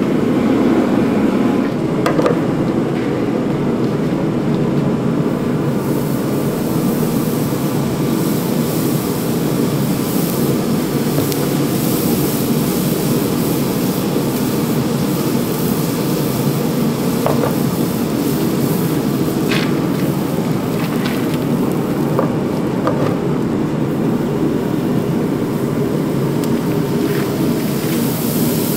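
Gas forge burner running with a steady roar, with a few light metallic clicks.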